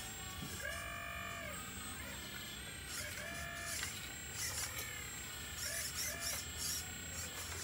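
Radio-controlled model excavator with a long arm: its small electric motors whine in about four short runs, each rising in pitch, holding and falling away, as the boom lowers and the bucket digs into the soil, with brief scraping of the bucket through the gravelly soil in between.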